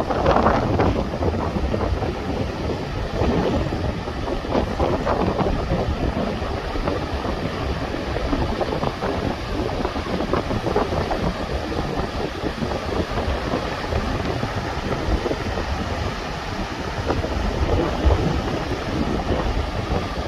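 Mountain valley stream rushing: a steady, dense rush of water that holds an even level throughout.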